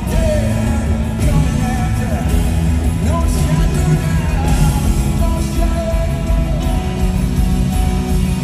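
Live band playing in an arena: a male lead vocal sung over acoustic guitar, drums and electric bass.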